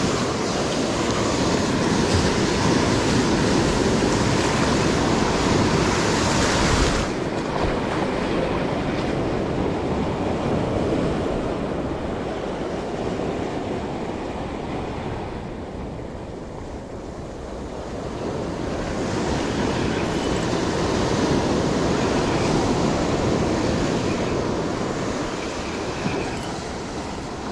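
Ocean surf washing over rocks and up the sand, with wind rushing on the microphone. The noise drops abruptly about seven seconds in, then swells again with the next wave.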